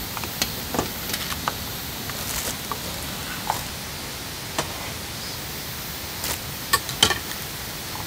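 Dishes and cooking utensils clinking and knocking now and then at a camp table, over a steady hiss.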